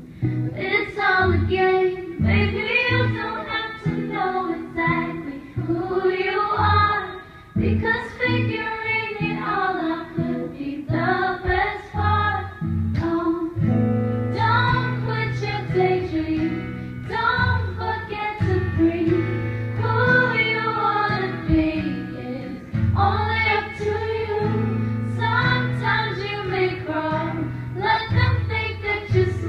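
A woman singing live into a microphone over her own acoustic guitar, amplified through the venue's PA.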